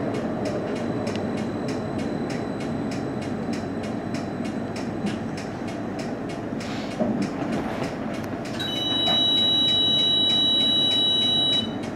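CAF Urbos 3 tram running slowly, heard from the driver's cab as a steady rumble with a fast regular ticking. Near the end a loud steady electronic tone of two high notes sounds for about three seconds, then stops.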